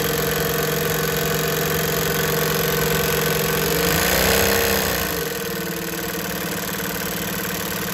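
JUKI LH-3528A twin-needle lockstitch industrial sewing machine running steadily, stitching through denim. It speeds up briefly about halfway through, then settles back to a slightly lower, steady running speed.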